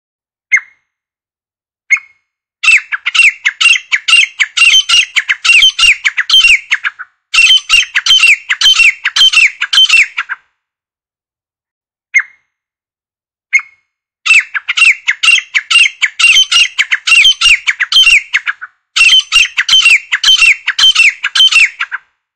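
Grey francolin calling loudly: two single short notes, then a long, fast run of high, repeated notes that rise and fall, several a second, lasting about eight seconds. After a pause with two more single notes, the same run comes again.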